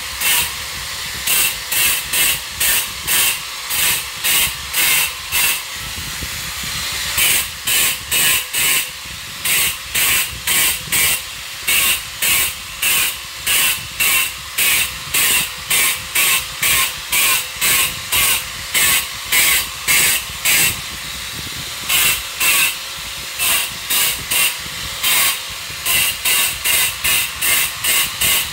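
Rhythmic rasping strokes of a hand tool working a dusty material, about two a second, over a steady hiss, with a few short pauses.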